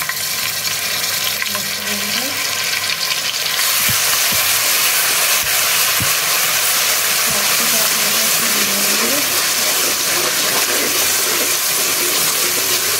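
Hot oil sizzling hard in an aluminium pot of fried onions as a wet paste is dropped in, with the sizzle swelling about four seconds in. A slotted metal spoon knocks and scrapes against the pot a few times as it is stirred.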